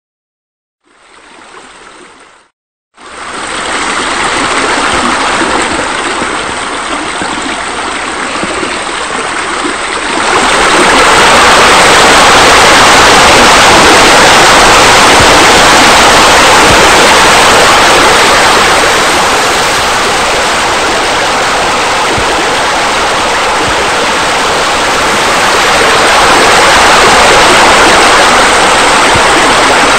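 Steady rush of falling water, as from a pool's waterfall or spa spillover. It comes in about three seconds in, after a brief faint burst, and grows louder about ten seconds in.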